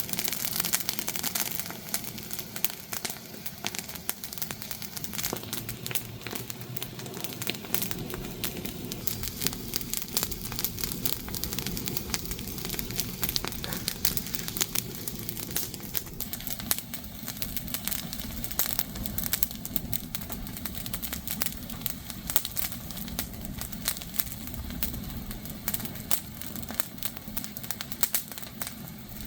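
Wood fire crackling, with a steady, irregular run of sharp pops and snaps.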